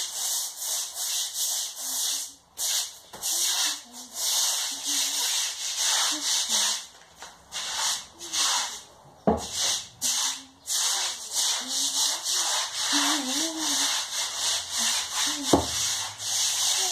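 Stiff-bristled floor brush scrubbing a wet floor spread with washing powder, in brisk, rhythmic back-and-forth strokes with short pauses. Two sharp knocks, about nine seconds in and louder near the end.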